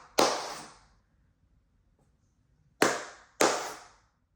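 Sharp hand claps: one just after the start, then a pair about half a second apart near three seconds in, each trailing off briefly in the room. Double claps like these are the signal the Arduino clap switch listens for to toggle the light.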